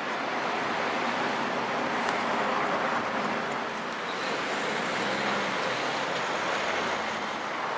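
Steady road traffic noise: cars running and passing on a busy city street.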